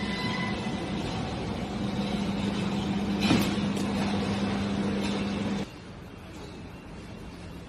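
Production machinery running with a steady hum and a sharp click about three seconds in. The hum cuts off abruptly about two-thirds of the way through, leaving a quieter noise.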